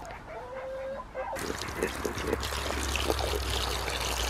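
Water pouring from a jug into a pan on the ground, a steady splashing pour that starts about a second and a half in. Before it, faint calls from the poultry.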